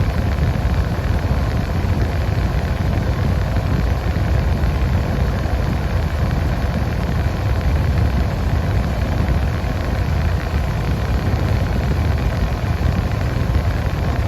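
1992 Nissan 300ZX Twin Turbo's 3.0-litre twin-turbo V6 idling steadily with the air conditioning running, a low engine hum under an even rush of air from the blower. The engine is still cold.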